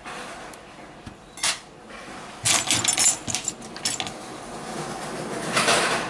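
Metal tweezers and a metal pick clicking and scraping against an opened Samsung Galaxy Note 9's frame and flex cables while the phone is handled. There is a single click early, a clatter of sharp clinks in the middle, and a longer rustling scrape that swells near the end.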